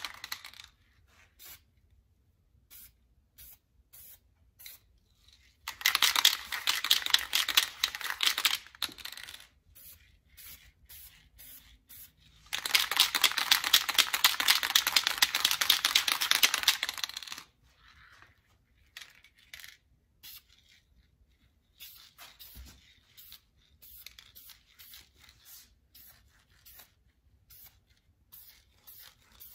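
Aerosol can of self-etching primer spraying in two long bursts, about three and five seconds long, with faint clicks between and after them.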